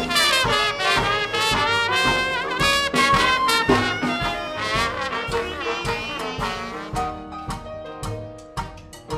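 Live Dixieland jazz band playing, with trumpet and trombone leading over a steady beat. About seven seconds in, the horns drop out and a lighter plucked rhythm carries on.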